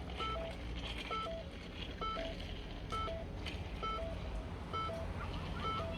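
Car warning chime sounding over and over, a high note falling to a lower one about once a second, over a steady low hum.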